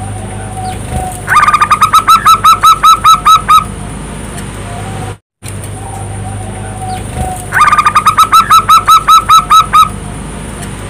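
Zebra dove (perkutut) singing its cooing song twice: each song is a quick burst of short notes settling into a steady run of about six clear coos a second, lasting a little over two seconds. A steady low hum runs underneath.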